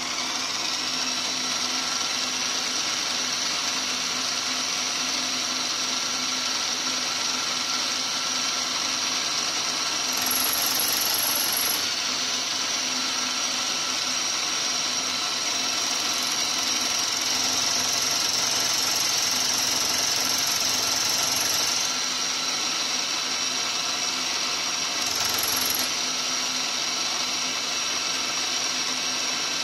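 Maktek KF 25L Vario benchtop milling machine running, its motor and spindle turning a single-insert fly cutter with a steady whine. The sound grows a little louder and brighter for a few seconds, three times.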